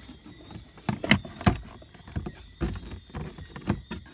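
Scattered knocks and clicks of hands working in a car's footwell under the dashboard, the sharpest two close together about a second in.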